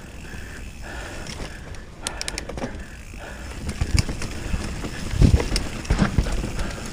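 Mountain bike running down a rough dirt trail: steady chain and frame rattle with the rear hub ratchet clicking. Several heavy thuds in the second half, the loudest about five seconds in, as the wheels and suspension hit roots or rocks.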